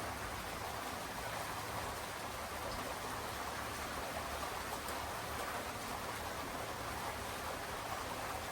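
Steady rainfall: an even, unbroken hiss of rain, with no single drops or other events standing out.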